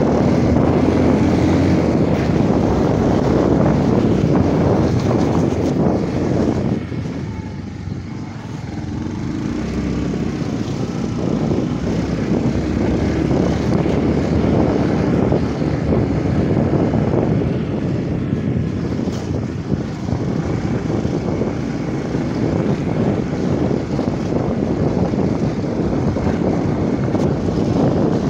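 Small motorcycle engine running while riding on a gravel road, mixed with wind noise on the microphone. The sound drops for a couple of seconds about seven seconds in, then builds again.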